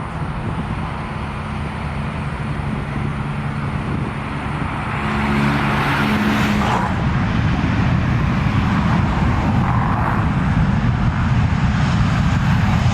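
Airliner jet engines running, the rushing noise growing louder about five seconds in as the aircraft comes closer.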